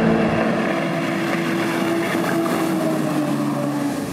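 Twin Mercury Diesel 6.7L six-cylinder turbodiesels driving a Buzzi 38 Stab Corsa powerboat at high speed, a steady engine drone mixed with the hiss of spray. The engine note falls gradually in the second half as the boat passes.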